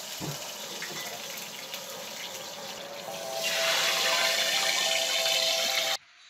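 Steady hissing from a frying pan on a gas stove, growing louder about three seconds in and cutting off suddenly near the end.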